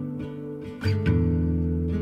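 Background music of strummed acoustic guitar chords, with a new, louder chord struck a little under a second in.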